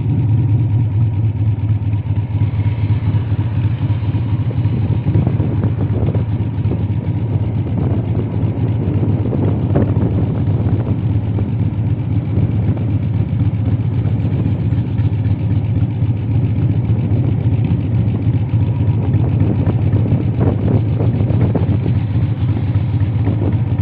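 Cruiser motorcycle engine running steadily at low speed, heard from the rider's seat.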